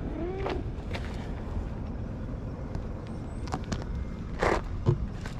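A cat's short meow near the start, over a steady low rumble, with scattered taps and a brief rustle about four and a half seconds in as a hand strokes the cat.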